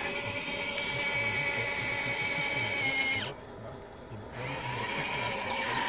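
Electric hydraulic pump of a radio-controlled Liebherr crawler loader whining at a steady high pitch while the bucket is worked. About three seconds in the whine drops in pitch and cuts out, then starts up again about a second later.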